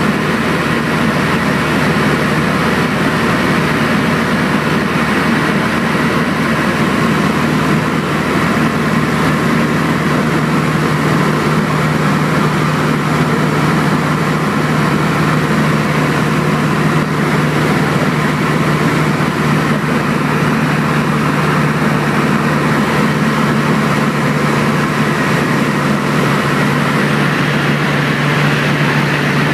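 Cabin noise of a single-engine high-wing light aircraft in cruise flight: the piston engine and propeller make a loud, steady drone with a constant low hum, unchanged throughout.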